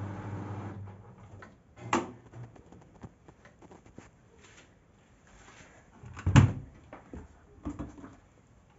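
The last of an Arctic front-loading washing machine's hum stops within the first second as the cycle ends. A sharp click comes about two seconds in. The loudest sound is a clunk as the porthole door is pulled open about six seconds in, followed by a few lighter knocks.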